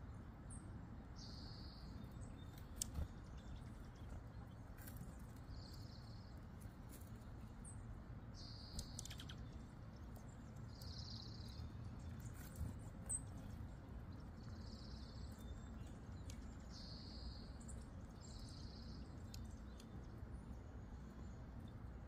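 Wild birds calling faintly: a short buzzy note repeated every two or three seconds, with brief high chirps between, over a low steady outdoor rumble. A few soft clicks stand out, the loudest around the third and thirteenth seconds.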